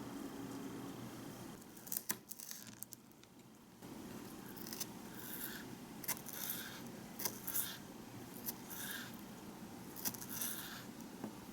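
Repeated short, crisp cutting or snipping strokes, about one a second, after a few sharp clicks about two seconds in.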